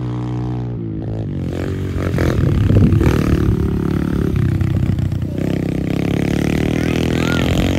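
Small dirt bike engine running under throttle as the bike rides past close by, growing louder about two seconds in and settling to a steadier note in the second half.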